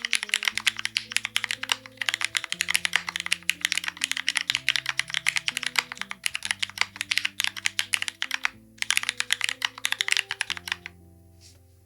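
Fast, continuous typing on a Bina 103 mechanical keyboard with Cherry MX Black Hyperglide linear switches on an aluminium plate and GMK keycaps: a dense run of key strikes. It pauses briefly past the middle and stops shortly before the end, leaving soft background music.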